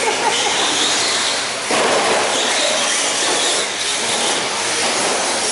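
Electric RC stadium trucks racing on a dirt track: a steady high whine of the electric motors mixed with tyre and drivetrain noise, getting louder about 1.7 seconds in.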